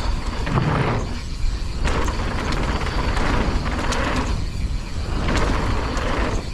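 Strong wind buffeting a helmet-mounted action camera's microphone in a deep, constant rumble, over the rattle and clicks of a mountain bike rolling slowly down a rough dirt trail.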